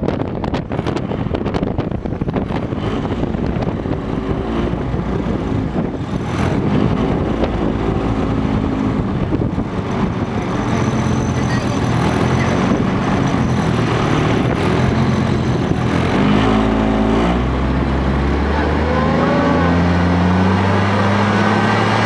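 A wheeled armoured vehicle's engine running as it drives, heard from on top of the vehicle, with wind buffeting the microphone at first. The engine note steps up and down with gear changes and climbs over the last few seconds as it accelerates.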